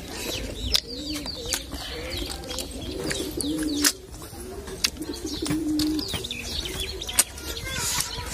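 Pigeons cooing repeatedly in low, rolling phrases, with small birds chirping higher up. Close by, sharp mouth clicks and smacks come from snail meat being sucked out of the shells.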